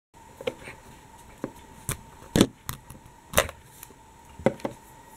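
Small plastic jar of acrylic paint being handled, its plastic screw cap giving a series of short clicks and taps, about eight in all, spaced irregularly.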